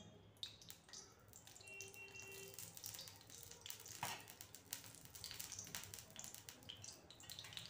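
Faint, irregular crackling and ticking of a little cooking oil heating in an iron kadhai over a gas burner, with one knock about four seconds in.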